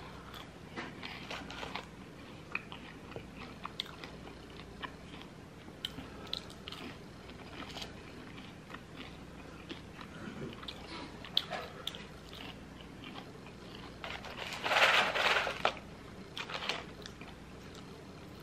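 Quiet chewing and crunching of Jack in the Box curly fries, a string of small crisp bites and mouth clicks. A louder burst lasting about a second comes a few seconds before the end.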